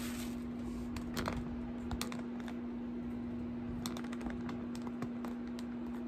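Scattered light clicks and taps of hands handling plastic packaging and small items on a tabletop, over a steady low hum.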